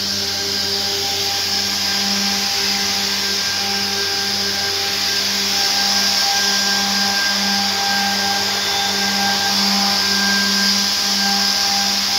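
Edgebanding machine running with its dust extraction: a steady, loud whirr and rush of air over a low hum that pulses about two to three times a second.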